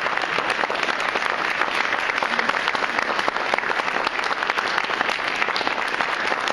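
Audience applauding steadily, with many hands clapping at once.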